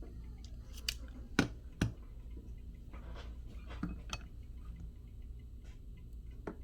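A handful of small, sharp clicks and taps of hand tools against a phone during a repair, the loudest two close together about a second and a half in, over a steady low hum.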